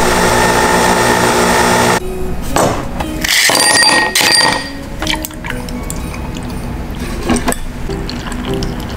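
Nespresso coffee machine brewing a pod, a steady loud hum that cuts off about two seconds in, followed by glassware clinks and milk being poured into a glass.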